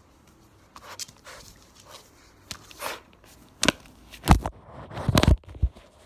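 Golden retriever puppy pawing and mouthing a phone camera on the floor: scrapes and clicks of fur and paws against the phone, then a few loud knocks and thumps about four and five seconds in as the phone is knocked over.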